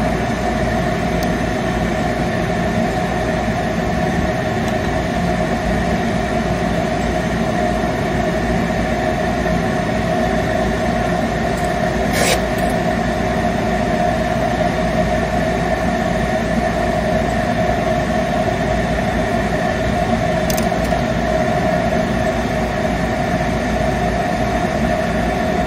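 Steady drone of a running motor with a strong mid-pitched hum, even in level throughout; two faint clicks, about halfway through and again later.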